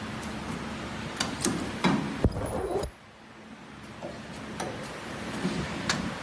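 Cosmetic tube filling machine at work: irregular mechanical clicks and knocks over a steady hum. The sound drops away abruptly about three seconds in, then the hum and clicking return.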